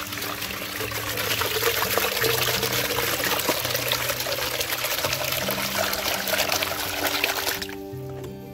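Water pouring steadily into a container, cutting off suddenly near the end.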